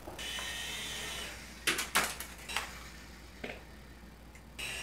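Electric rotor motors of an Auldey SkyRover Navigator toy RC helicopter whining as the rotors spin, stopping after about a second. Then come a few light knocks and clicks, and the whine starts again near the end. This is a defective unit whose tail rotor does not turn, so it will not fly properly.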